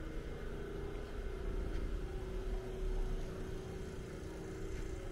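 A vehicle engine running close by, a steady hum over the low rumble of street noise.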